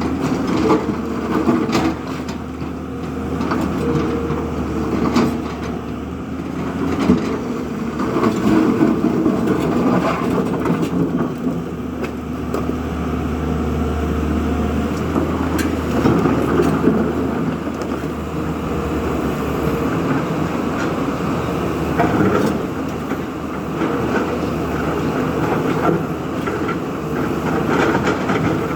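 Heavy diesel machinery running steadily under load, with a low engine drone and scattered clanks and knocks of metal working.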